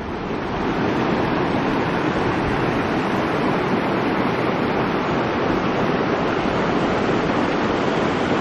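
Swollen mountain river rushing over rocks in whitewater: a steady, even rush of water from a river running high and raging after fresh snow.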